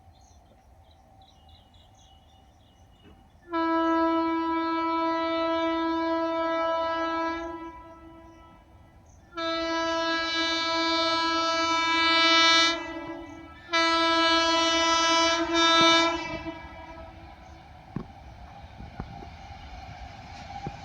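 WAP-7 electric locomotive horn sounding three long blasts of one pitch, the first about four seconds long. After the blasts, the rumble of the approaching train grows louder.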